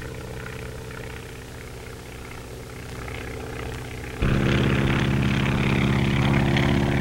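Biplane's propeller engine droning steadily; about four seconds in it turns suddenly much louder.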